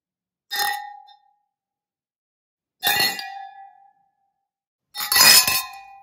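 Champagne-filled fluted glasses clinking in a toast, three times: a clink about half a second in, another a little before three seconds, and a louder cluster of several glasses striking together about five seconds in. Each clink leaves a short bright ringing tone.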